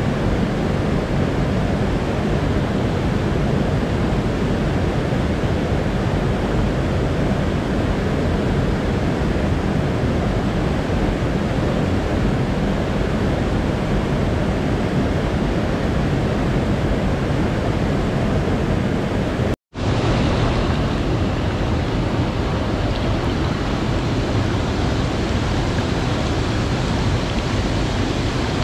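Rushing mountain stream, water running fast over rocks in a steady, loud rush. It breaks off for an instant about twenty seconds in, then carries on the same.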